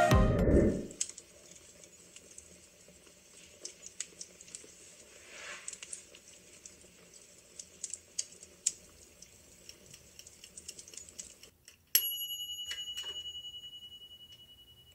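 Intro music ends in the first second, then faint scattered ticks. About twelve seconds in, a kitchen timer bell goes off with a rapid ringing that dies away over about three seconds, signalling that the cupcakes in the oven are done.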